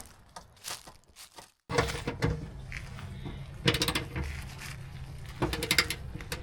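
Hand tools clicking and clinking against metal while side-step bracket bolts are worked, with short runs of rapid clicks about four and six seconds in.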